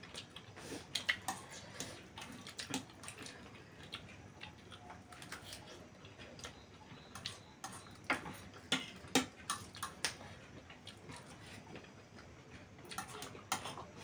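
People eating noodles and fried chicken: soft irregular clicks of chewing and of forks and spoons tapping on plates, a little louder and closer together around eight to nine seconds in.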